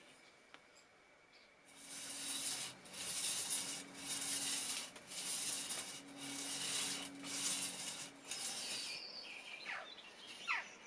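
A steel part from a vintage hand plane being rubbed back and forth on sandpaper glued to a wooden block: about seven rasping strokes, each under a second. Near the end come a few short, falling chirps.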